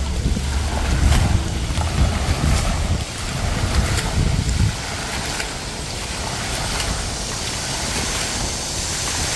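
Outdoor city street noise: a heavy low rumble for the first four and a half seconds, then a steady hiss.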